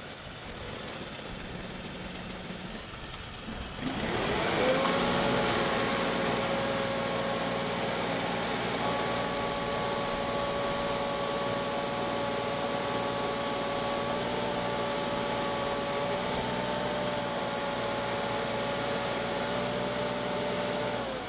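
New Holland Workmaster 55 tractor's diesel engine running; about four seconds in it picks up to a higher, steady speed with a whine as the front loader lifts about 2,900 pounds of logs.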